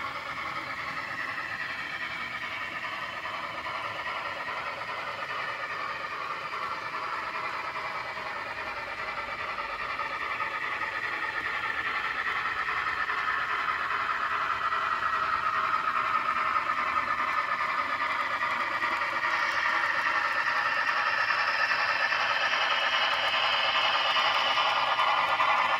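N scale model train running along the track: a steady whirring whine of the motor and wheels on the rails, growing louder through the second half.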